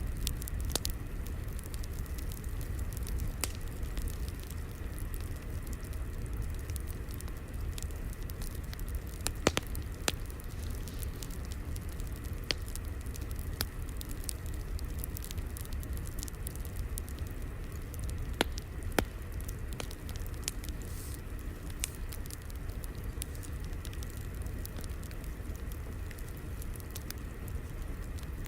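Crackling fire: a steady low rumble with scattered sharp pops and snaps every few seconds.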